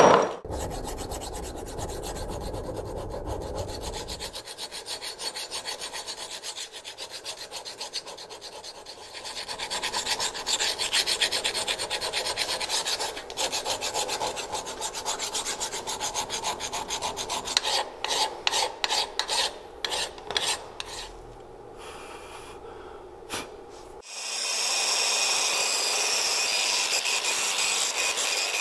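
A hand flat file rasps back and forth over a rusty brake caliper held in a vise, in quick repeated strokes that become separate, distinct strokes later on. About 24 s in, an angle grinder fitted with a wire brush starts and runs steadily.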